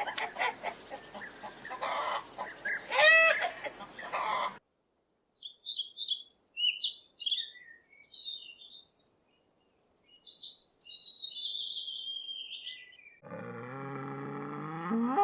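Chickens clucking for the first four and a half seconds; then a small bird chirps several times and gives one long falling trill; near the end a low, drawn-out animal call begins, like a bleat or moo.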